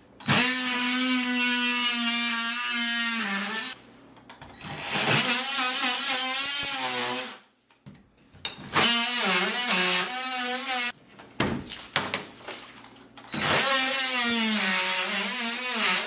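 Ryobi cordless oscillating multi-tool plunge-cutting through drywall and the plaster behind it. It runs in four bursts of a few seconds each with short pauses between, and its steady buzz sags and wavers in pitch as the blade bites.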